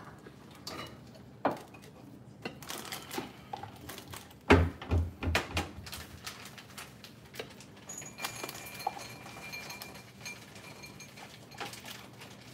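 Kitchen handling sounds: scattered light clicks and knocks of dishes on a countertop, with a cluster of heavier thumps about four and a half seconds in.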